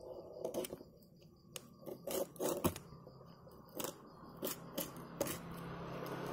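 Box cutter slicing through the tape of a cardboard parcel: a string of short scraping, ripping strokes, the loudest about two and a half seconds in.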